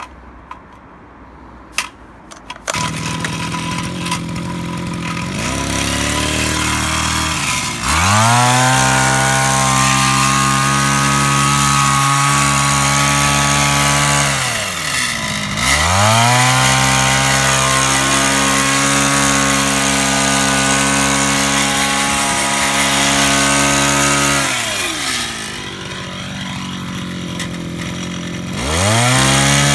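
Zenoah HT2300 engine hedge trimmer's small two-stroke engine starting about three seconds in after a few clicks, idling, then revved to full throttle twice for several seconds each, pitch rising and falling at each change, and revving up again near the end.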